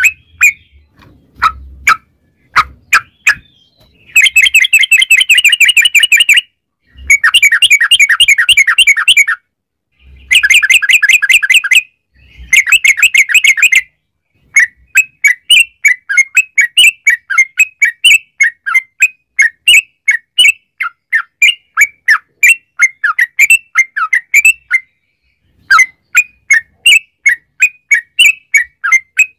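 Yellow-vented bulbul (trucukan) singing loudly. A few sharp chirps open, then four long, very rapid rattling trills of about two seconds each, and from about halfway in a long run of quick chattering notes, three or four a second, with short pauses.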